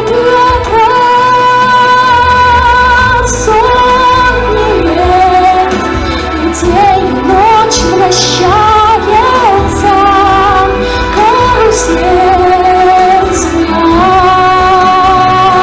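Music: a song with singing voices over an instrumental accompaniment, a melodic passage in which no words are made out.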